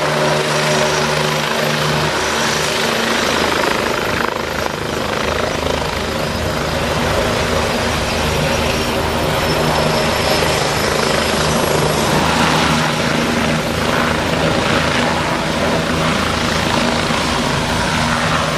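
Bell 429 helicopter running close by: the steady, loud noise of its rotor and twin turbine engines.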